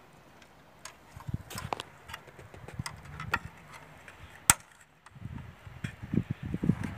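Hand work with small tools and a cable: scattered clicks and knocks, one sharp snap about four and a half seconds in, then denser rustling and thumping handling noise.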